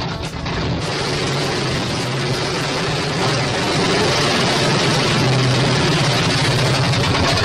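Detroit Diesel 6-71 naturally aspirated two-stroke inline-six diesel in a 1968 GMC water truck, running steadily and loudly.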